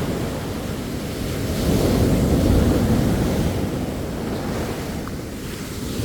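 Sea waves breaking and washing on a beach, a steady surf wash that swells about two seconds in and eases off toward the end, with some wind rumble on the microphone.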